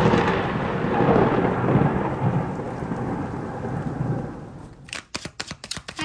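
Thunder rumbling with rain, slowly fading out over about five seconds. A few sharp clicks follow near the end.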